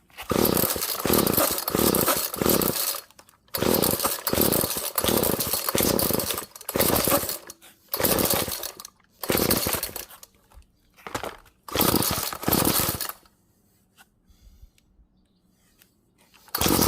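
Two-stroke engine of a Weed Eater GTI 16D string trimmer started and running in a string of loud revving bursts a second or two long. It goes quiet about 13 seconds in and runs again near the end: a found trimmer that has come back to life.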